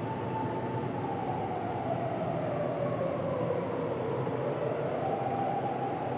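Emergency vehicle's siren wailing, its pitch sliding slowly down and climbing again near the end, over a steady rumble of road and tyre noise.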